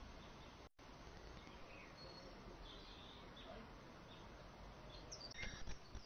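Faint background birdsong: scattered short chirps over a quiet outdoor hiss, with a few louder calls near the end.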